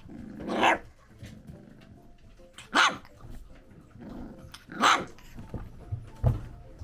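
A dog barking three times, about two seconds apart, each bark short and sharp; a short knock follows near the end.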